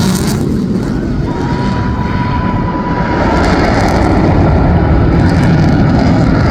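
F-15 fighter jets making a low pass, their jet engines giving a loud, steady noise, with a faint thin whine for a couple of seconds about a second in.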